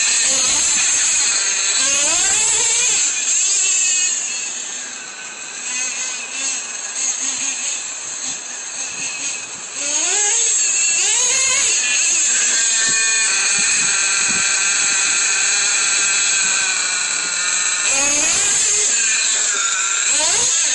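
Nitro engine of a Traxxas Revo RC monster truck running at high revs, a shrill whine that climbs and falls again and again as the throttle is worked. It goes fainter for several seconds about four seconds in, then comes back loud about ten seconds in.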